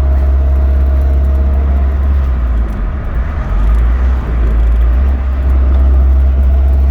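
Boosted Honda D16 inline-four engine running with a steady low drone, its level dipping and wavering briefly around the middle.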